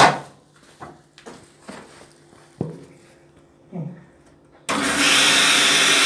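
A few light knocks and clicks, then, a little under five seconds in, a washing machine's water inlet opens: a sudden steady loud rush of water into the detergent dispenser box as the machine takes in water.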